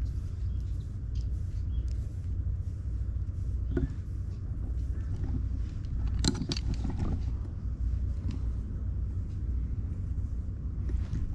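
Soft, repeated scratching strokes of a nekojasuri grooming file being drawn through a cat's fur, over a steady low rumble that is the loudest sound; a short cluster of sharper scratches comes about six seconds in.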